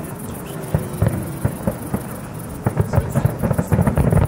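Fireworks shells bursting in quick succession, a run of bangs that comes thicker and louder in the second half.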